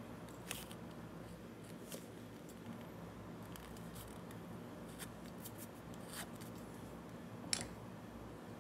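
Faint, scattered scratches and clicks of a small hand tool scraping excess glue off the edges of a leather piece, over a steady low hum. The sharpest click comes near the end.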